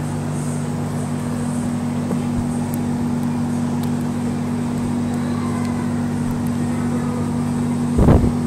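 Steady electric hum of a large drum floor fan running, with a constant low drone. A brief louder sound breaks in near the end.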